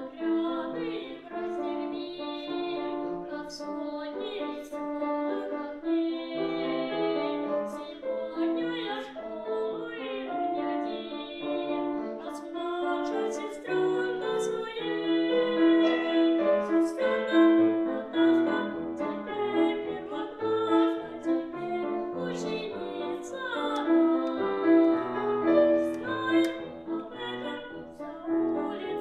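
A young boy singing a Russian children's song with piano accompaniment.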